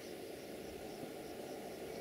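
Crickets chirping in pulses about twice a second over a steady low hum.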